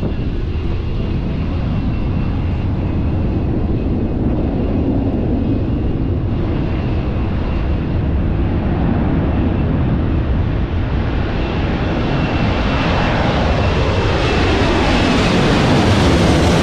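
Jet engines of an Airbus A330-200 (GE CF6-80E1 turbofans) running at high power for takeoff: a steady jet roar with a faint high whine. It grows louder and brighter over the last few seconds as the thrust builds.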